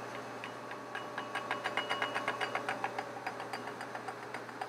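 Laboratory stirrer running: a steady motor hum with rapid, fairly even mechanical clicking, several clicks a second.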